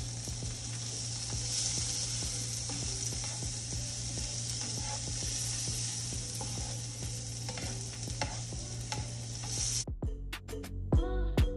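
Shrimp frying in melted butter in a nonstick skillet, a steady sizzle with light scrapes as a plastic slotted spatula stirs them. The sizzle cuts off suddenly about ten seconds in and music with a beat takes over.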